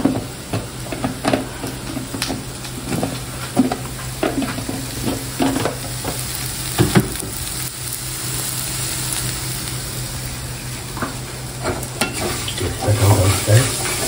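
Tempoyak (fermented durian paste) and langi frying and sizzling in a granite-coated frying pan, stirred and scraped with a wooden spatula in irregular strokes. The strokes thin out for a few seconds in the middle, leaving a steadier sizzle.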